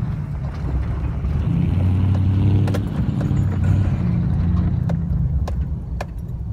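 Toyota Tundra pickup's V8 engine running as the truck drives in loops on dirt, the engine note rising and growing louder about two seconds in, then easing off. A few sharp clicks sound over it in the second half.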